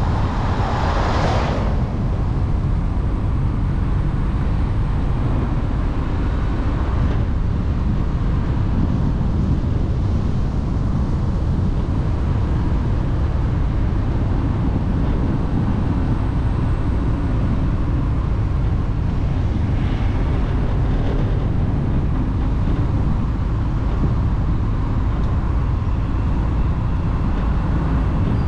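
Steady low rumbling noise of a moving vehicle, with a brief louder whoosh in the first second or so.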